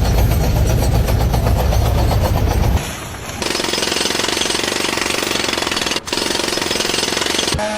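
Jackhammer hammering rapidly and steadily. About three seconds in, it switches abruptly to a lighter, steady rapid rattle, which drops out briefly near six seconds.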